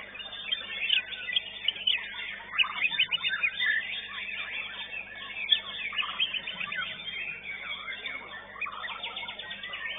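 Caged songbirds singing hard, several at once: a dense, unbroken tangle of whistles, chirps and quick trills, with a fast rattling run near the end.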